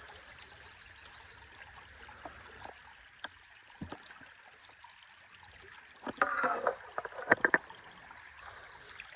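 Creek water trickling steadily. A few faint clicks, then a brief cluster of louder sharp sounds about six to seven and a half seconds in.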